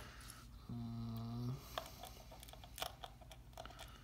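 Faint, sparse light clicks of a small screwdriver and screws handled against the plastic back of a calculator being screwed back together, with a short hummed "mm" about a second in.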